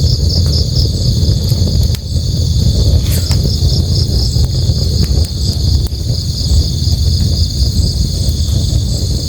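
Crickets chirping in an even, pulsing rhythm over the steady low rush of a river, with scattered small crackles and pops from a campfire, one a little stronger about three seconds in.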